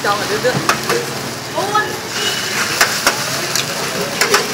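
Noodles sizzling on a flat-top griddle, with sharp clicks and knocks as the cook works the griddle with a metal spatula and cracks eggs onto it. A person's voice is heard briefly in the first two seconds.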